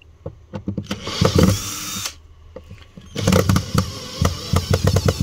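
A 12 V cordless drill-driver running in two bursts as it backs out the screws holding an amplifier board: a short run of about a second, then a longer one from about three seconds in with a fast, even clicking.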